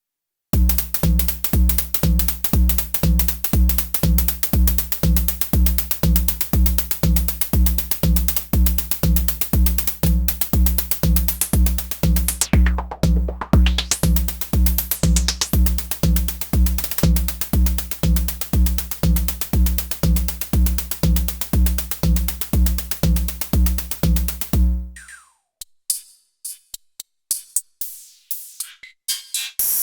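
Elektron Syntakt drum machine playing a programmed beat: a steady kick drum about twice a second under dense hi-hat-style ticks, with a sweep in the high end about halfway through. About 25 seconds in the kick drops out, leaving only sparse, scattered percussion hits.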